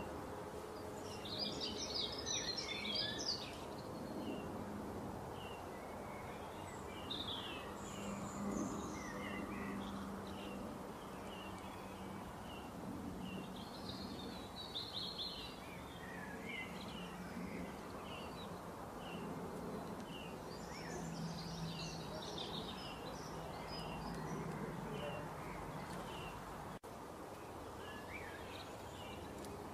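Small birds chirping and singing over a steady background hiss, with busier bursts of song a couple of seconds in, around the middle and again a little later. A low hum comes and goes underneath.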